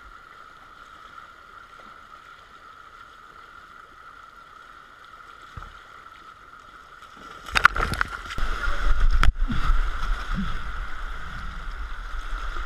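Flooded stream rushing, faint and steady at first. About seven seconds in come a couple of sharp knocks, then a much louder rumbling rush as the water churns and foams right against the camera.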